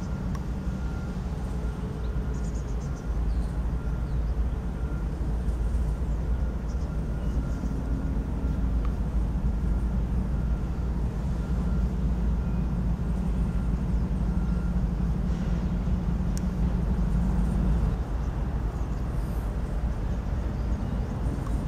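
BNSF diesel locomotive's engine running as it creeps forward through the yard: a steady low rumble with a droning tone that grows stronger from about ten seconds in and eases off near eighteen seconds.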